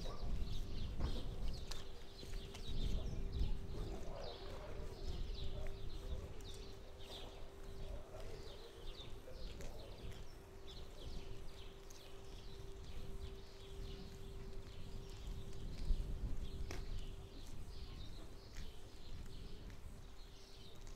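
Small birds chirping over and over, with footsteps on hard ground and a steady low hum from an unseen machine that stops about three-quarters of the way through.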